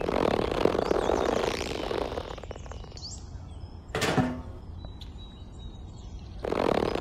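Rubbing and scraping as a plastic pipe ring studded with screws is worked by hand over a muddy toy tractor tyre, in two spells, the second starting near the end, with a single knock about four seconds in. Birds chirp faintly.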